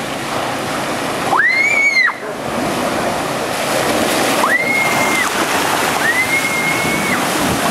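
Typhoon-driven sea surf churning and splashing, a loud steady rush of water. Three high whistling tones stand out over it, each rising sharply, holding for about a second and falling away.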